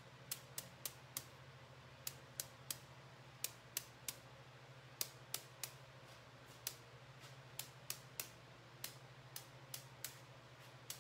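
Sharp ticks of a marbling brush being tapped to spatter drops of paint onto the size, coming in irregular runs of two to four taps with short pauses between. A steady low hum runs underneath.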